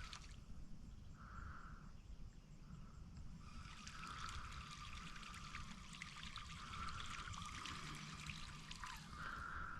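Faint high electronic ringing from a Livingston Walking Boss 2 topwater lure's built-in sound chip as it sits on the water. The ringing fades in and out, over light trickling and lapping water.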